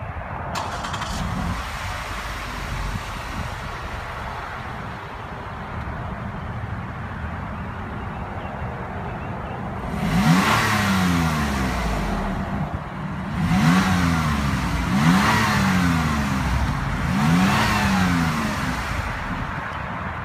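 A 2016 Lexus RX 350's 3.5-litre V6 idling, heard at the exhaust tips. From about ten seconds in it is revved four times, each rev rising in pitch and falling back to idle.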